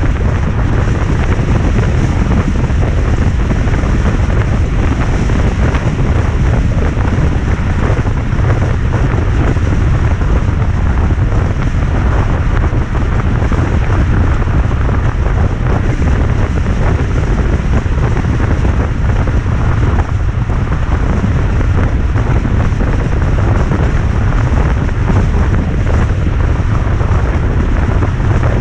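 Wind buffeting the microphone in the rain: a steady, loud low rumble under an even hiss that never lets up.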